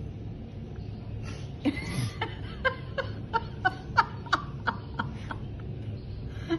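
A person laughing in a run of short, quick bursts, about three a second, starting a couple of seconds in, over a low steady hum.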